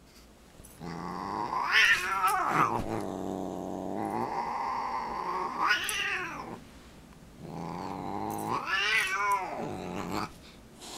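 Siamese cat growling in long low moans that swell into loud rising-and-falling yowls, three times: about two, six and nine seconds in.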